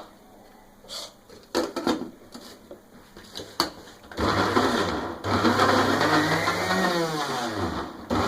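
A few knocks and clatters, then about four seconds in an electric food chopper starts grinding raw minced meat with green chillies, coriander, onion, garlic and ginger. Its motor pitch wavers as the load shifts, with a brief stop before it runs on.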